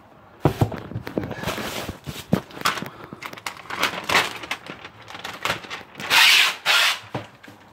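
Plastic masking sheet crinkling and crackling as it is handled, with many small irregular crackles and two louder rustling bursts about six seconds in.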